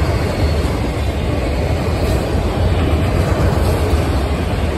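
Freight train of enclosed autorack cars rolling past close by: a steady rumble of steel wheels on the rails.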